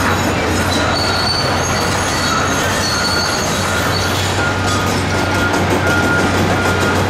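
Crawler excavator travelling, its steel tracks squealing and screeching over the steady running of its diesel engine.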